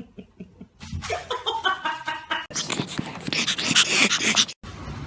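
A puppy making a run of short high-pitched cries, followed by a loud steady hiss that cuts off suddenly near the end.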